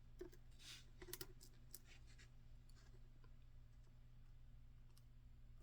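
Faint clicks and light scratching of the EVVA ICS lock's small finger pins being pushed into place on a hard surface, several in the first two seconds, then near silence with one more tick near the end.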